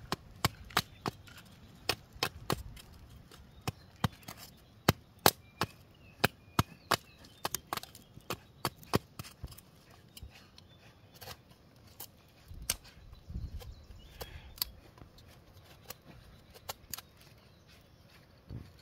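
Repeated sharp chopping strikes on wood, irregular, about two a second for the first ten seconds, then fewer and fainter.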